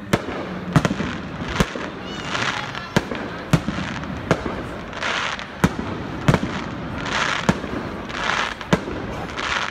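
Aerial fireworks shells bursting overhead: about a dozen sharp bangs at irregular intervals, with short hissing stretches between them.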